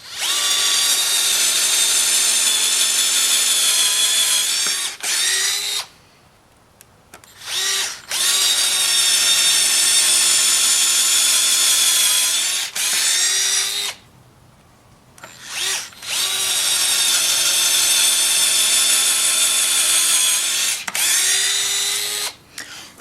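Power drill with a 1/8-inch bit drilling three holes through doubled thin aluminum sheet: three runs of steady, high motor whine of about five seconds each, separated by short pauses with brief trigger blips.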